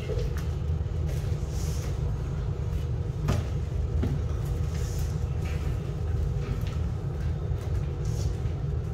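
A steady low rumble, with scattered light clicks and scuffs from Rottweiler puppies' claws and paws on a tile floor as they play.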